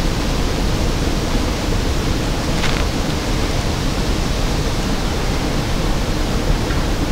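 Steady rushing noise throughout, heaviest in the low end, with a brief faint higher sound about two and a half seconds in.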